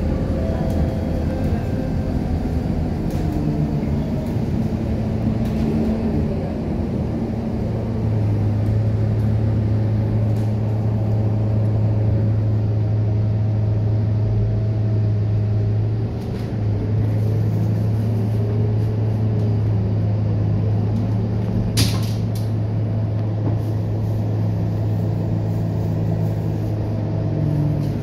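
Scania K230UB bus's diesel engine running under way, heard from inside the cabin: a steady low hum that grows louder about eight seconds in and dips briefly around the middle. A single sharp click or knock comes near the end.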